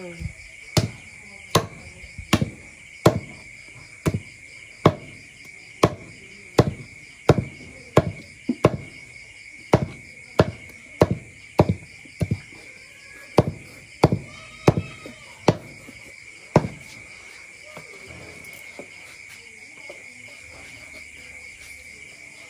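Knife chopping pork belly into small pieces on a chopping board: over twenty sharp, evenly paced chops, a little more than one a second, stopping after about sixteen seconds. Crickets chirp steadily throughout.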